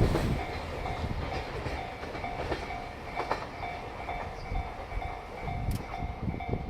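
Japanese level crossing alarm ringing in a steady repeating pattern, over the fading rumble and a few rail-joint clacks as the last container wagons of a freight train pass.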